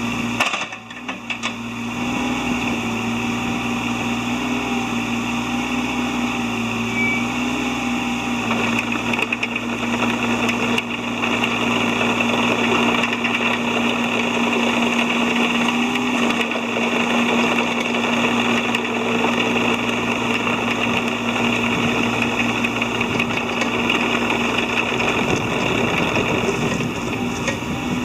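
Yanmar ViO20-3 mini excavator's diesel engine running steadily as the machine is operated, dipping briefly about a second in and running a little louder from about ten seconds on.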